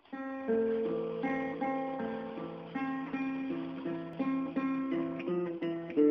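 Music: a guitar picking a repeating pattern of chords, starting abruptly.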